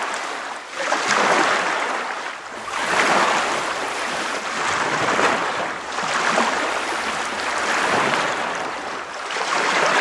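Ocean surf breaking and washing, a rushing noise that swells and fades every couple of seconds.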